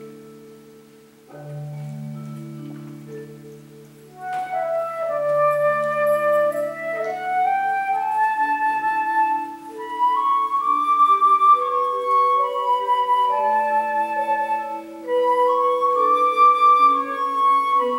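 Instrumental music: sustained keyboard chords, with a flute coming in about four seconds in and playing a slow melody that climbs and falls over them.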